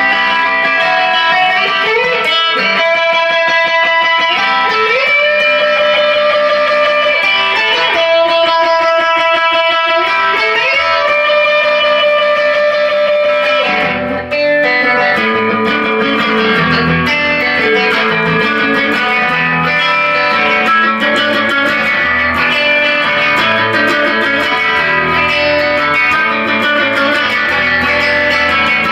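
Telecaster-style electric guitar picked in a steady rhythm: ringing notes with slides up the neck, then about halfway through it changes to choppier, lower chords.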